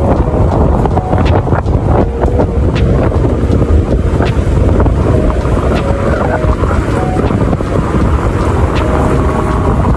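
Wind buffeting the microphone of a camera in a moving car, a loud, gusty rumble over the car's road noise.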